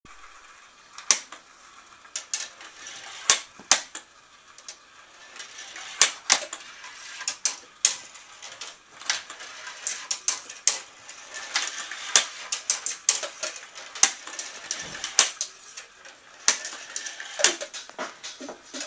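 Balls of a Magnext icoaster ball-run toy clicking and clacking along its tracks. The sharp clicks come irregularly, sometimes several in quick succession, over a faint steady rattle.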